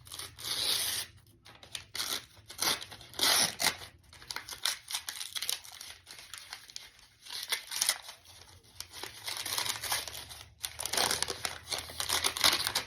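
Plain paper being torn and crumpled in irregular rips and rustles as a gift wrapped in paper and glued shut is pulled open.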